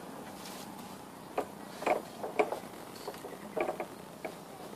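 A black plastic goat trough being set down into a dug hole and shifted into place: several short knocks and scrapes of plastic on soil.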